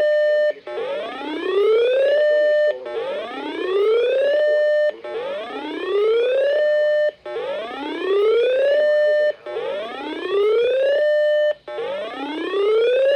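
Electronic alarm tone sweeping up in pitch, holding briefly at the top, then cutting out and starting again, about once every two seconds, some six times in a row.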